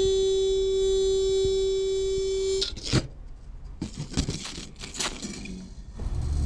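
Metal vibrating against dry ice: one steady, high singing tone with many overtones that cuts off suddenly about two and a half seconds in, followed by scattered ticks and crackles, then a low buzz that starts near the end.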